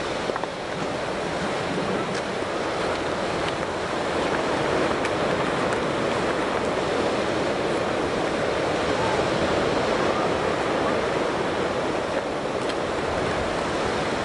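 Steady rushing of ocean surf breaking in a sandy cove, mixed with wind, growing a little louder about four seconds in.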